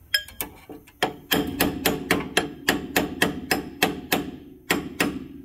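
Hammer tapping a metal drift through the clevis bolt hole on a car's lower control arm to knock the parts into line: a quick run of sharp, ringing metallic strikes, about four a second, after a few scattered taps at the start.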